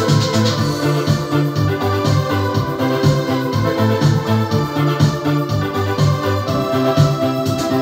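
Yamaha PSR-S750 arranger keyboard played live: chords and a melody over a strong bass line with a steady beat.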